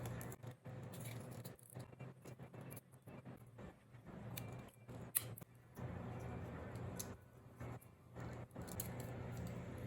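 Hand tools working on plastic model-kit parts: irregular small clicks and snips, over a low hum that comes and goes.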